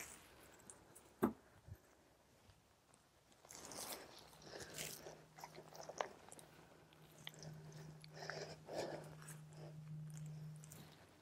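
Turf being torn up by hand: faint crunching and tearing of grass roots and soil, with a sharp knock about a second in. A faint steady low hum comes in about four seconds in.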